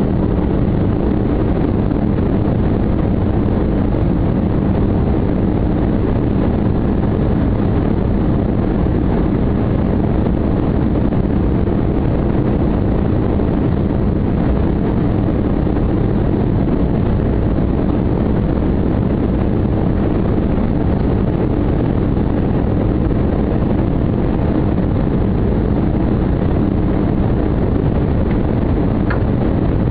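Steady, loud low rumble of an aircraft's engines and rushing air heard from inside the cabin during the landing, with a faint short click near the end.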